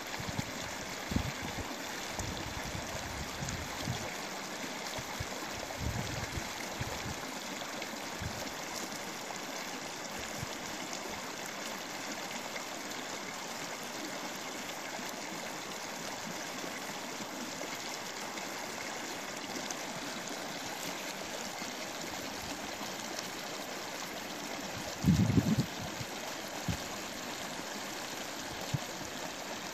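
Small rocky mountain stream running over stones in rapids, a steady rushing of water. A short low rumble stands out about 25 seconds in.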